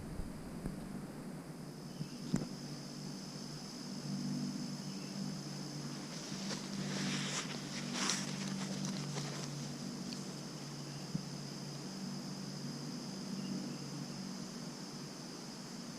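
Insects trilling steadily on one high pitch, with a low uneven hum underneath. Footsteps rustle and snap through forest brush, most clearly in the middle, with a single sharp click a couple of seconds in.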